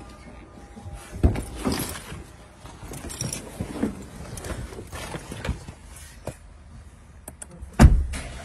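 Someone getting into a 2017 Audi A4's driver seat: rustling and soft knocks, a few light clicks, then the car door shutting with a heavy thump near the end.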